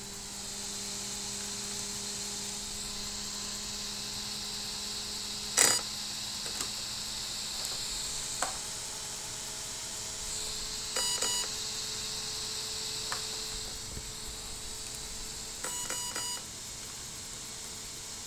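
Two short groups of electronic confirmation beeps from a 60 A sensorless brushless ESC, sounded through its brushless motor, about eleven and sixteen seconds in. They mark throttle end points being stored during calibration. A single sharp click about five and a half seconds in is the loudest sound, over a faint steady hiss.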